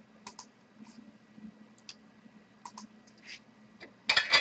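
Light, scattered clicks of small hard bingo pieces being handled on a table, with a louder quick clatter of several clicks near the end.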